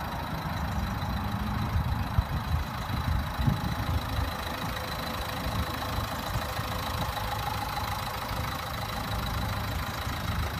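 2014 Dacia Duster's 1.5 dCi four-cylinder turbodiesel idling steadily, with a few louder bumps between two and four seconds in.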